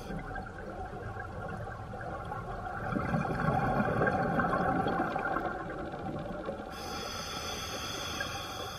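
Muffled underwater noise picked up by a camera in a housing, a low rushing sound that swells louder for about two seconds in the middle.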